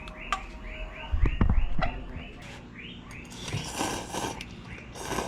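A short chirping call repeating about three times a second, with a few low knocks between one and two seconds in and rustling, handling noises later on.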